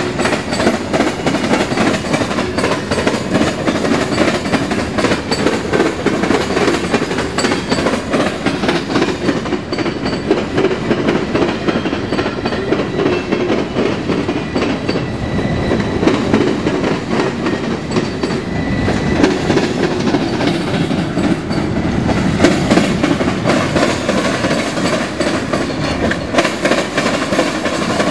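Freight train cars rolling past close by: a steady rumble with the clickety-clack of steel wheels over rail joints.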